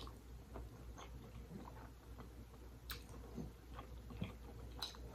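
Soft, close-up chewing of creamy seafood pasta, with small wet mouth clicks and a couple of sharper ticks.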